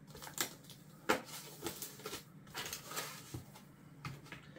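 Handling noise from a computer motherboard and its packaging as the board is lifted off a foam tray and set down on a cardboard box: a string of light, uneven knocks and clicks over soft rustling.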